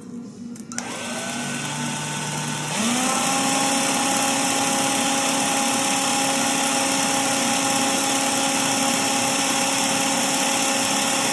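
Drill spinning the core wires of a fused Clapton coil while the outer wire wraps around them: it spins up with a rising whine about a second in, speeds up again at nearly three seconds, then runs at a steady high speed.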